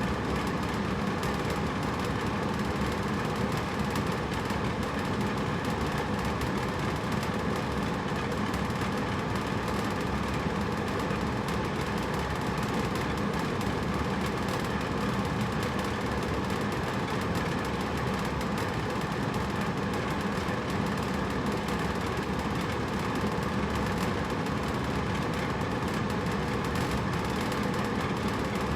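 Hotel room air conditioner running steadily: an even whooshing of fan air with a low hum and faint steady tones.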